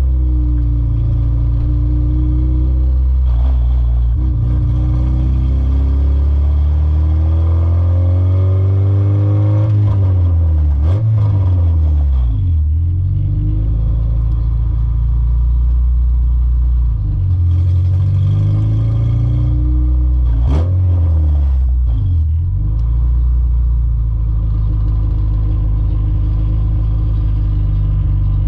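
Car engine and road noise heard from inside the cabin while driving. The engine note climbs as the car gathers speed, then drops sharply twice, about a third and two thirds of the way through, as it shifts gear or slows.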